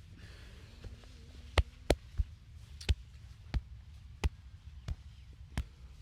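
Series of sharp percussive strikes from a hands-on head and back massage, about eight in irregular succession starting about a second and a half in, over a low steady hum.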